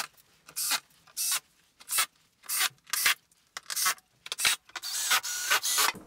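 Cordless drill driver set to its lowest torque, driving screws into plastic threads with its clutch clicking off in a string of short rasping bursts, which come closer together in the second half.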